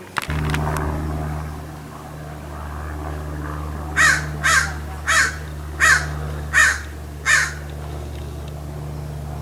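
A common raven giving six harsh caws, evenly spaced about two-thirds of a second apart, over a steady low drone that starts suddenly just after the beginning.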